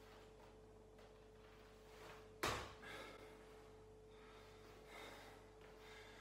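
Feet in trainers landing on a hard kitchen floor from a squat jump: a single thud about two and a half seconds in, followed by a few breaths.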